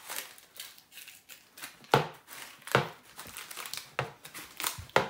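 Plastic packaging rustling as flat-pack baby changing table parts are handled, with about four sharp knocks spread across the few seconds.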